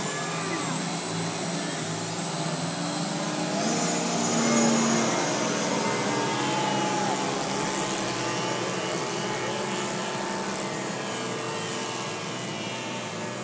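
Many radio-controlled 3D profile model aeroplanes flying at once, their motors and propellers whining together at many different pitches that rise and fall. Loudest about four to five seconds in, easing off a little toward the end.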